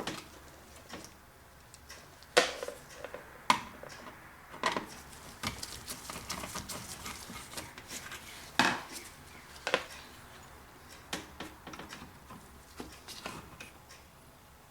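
Irregular metallic clicks, clinks and knocks of hands and tools working on small metal parts in a dishwasher's control panel, a handful of sharper knocks standing out among lighter taps.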